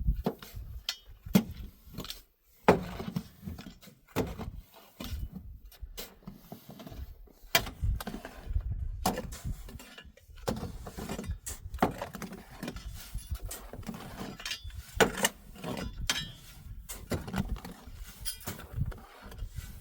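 Irregular knocks and clinks of objects being handled, several a second at times, over low rumbling noise.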